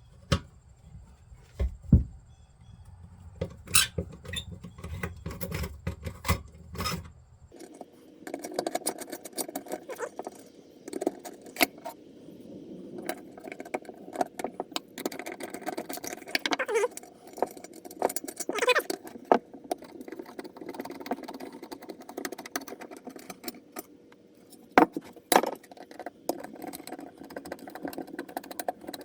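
Metal hand tools clinking and knocking on the steel muffler of a 1986 Honda ATC 350X as it is taken apart, in many separate sharp clicks and clanks. A steady low hum joins about eight seconds in.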